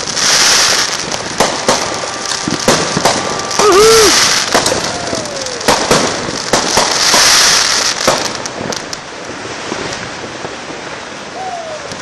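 Consumer fireworks going off: many sharp bangs at irregular intervals, with bursts of crackling hiss about a second in, around four seconds and near seven seconds.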